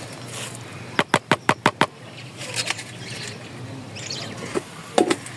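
A quick run of about seven sharp knocks about a second in, then a few fainter clicks, over a faint steady background; near the end a plucked note of music begins.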